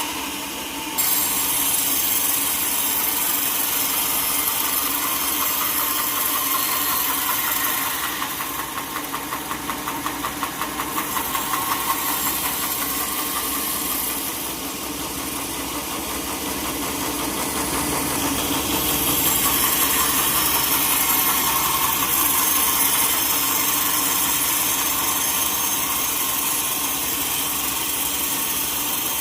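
Sawmill machinery running steadily with a loud, engine-like drone. The level dips and pulses rapidly for a few seconds about a third of the way in, then rises again.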